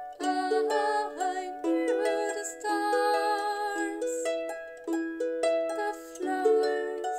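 Lever harp being plucked: a gentle melody of ringing notes that decay one into the next.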